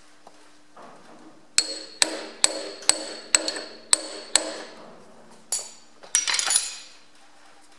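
Hammer tapping a steel punch to drive a pin deeper into a Ferguson FE35 tractor's draft-control linkage. Seven sharp metallic taps, about two a second, each with a bright ring. Two more strikes and a short metallic rattle follow near the end.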